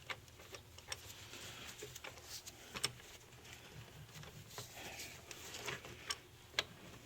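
Ratchet wrench clicking in short irregular runs as it tightens the solenoid valve's socket on the engine, with scattered light metal ticks.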